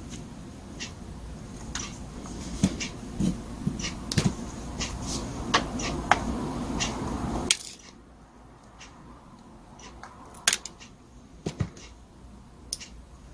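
Scattered small metal clicks and clinks as a screwdriver and small carburetor parts of a butane-powered brush cutter are handled over a metal dish while the carburetor is taken apart for cleaning. A low background rumble cuts off abruptly about halfway through.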